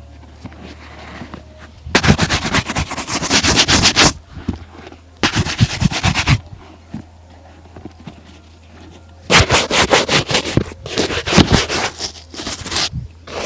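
Shoe being polished with rapid back-and-forth strokes, in four bursts of one to two seconds with short pauses between. A low steady hum runs underneath.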